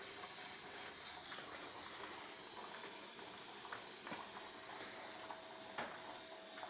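A steady high hiss, with scattered light clicks and a faint steady tone in the second half.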